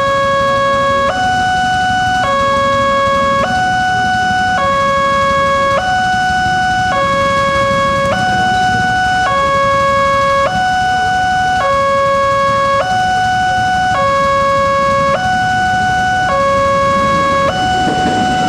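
Railroad level-crossing warning alarm sounding while the barrier is down, an electronic two-tone signal switching between a lower and a higher tone, each held a little over a second, over and over.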